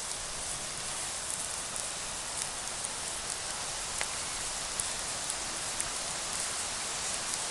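Campfire burning: a steady hiss with occasional sharp crackles and pops from the wood, one clear crack about four seconds in.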